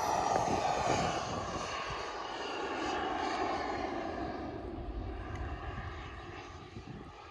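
Turbine engine of a Ziroli F9F Panther RC model jet flying past, a steady jet rush and whine that is loudest at the start and fades steadily as the plane moves away.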